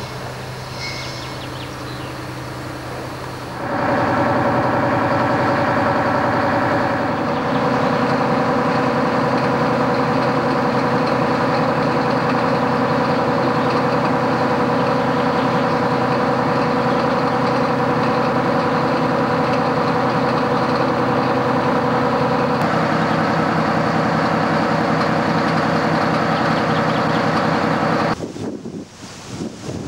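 A vehicle engine running at a steady speed. It comes in loud about four seconds in, shifts slightly in pitch twice, and drops away a couple of seconds before the end.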